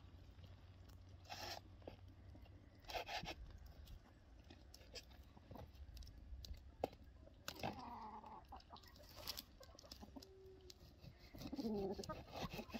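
Domestic chickens clucking faintly, with a few calls in the second half, over a few short strokes of a knife slicing raw beef on a wooden cutting board.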